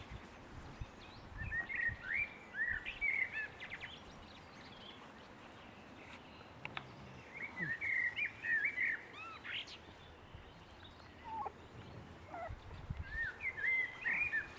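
A bird singing, repeating a short phrase of quick rising and falling chirps three times.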